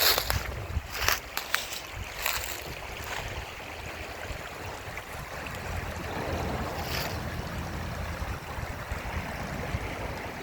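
Small mountain stream rushing steadily, running high after rain. Wind rumbles on the microphone, and there are a few brief knocks in the first few seconds.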